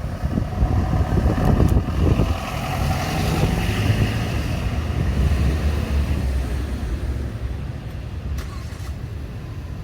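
Road traffic passing close by: a low vehicle rumble that holds steady, then fades gradually over the last few seconds.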